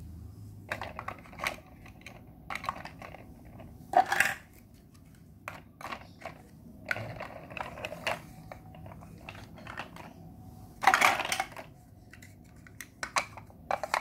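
Large plastic Mega Bloks building blocks being pulled apart and set down on a tile floor: irregular clicks and clatters of hard plastic, with louder rattling bursts about four seconds and eleven seconds in.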